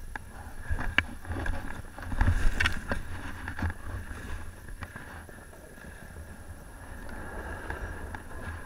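Rider sliding and scraping through deep snow, with wind rumbling on a helmet-mounted camera's microphone and a few sharp knocks, loudest a couple of seconds in.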